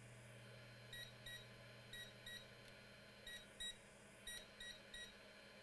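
Faint electronic beeping: short high beeps, mostly in quick pairs, repeating about once a second, with a run of three near the end.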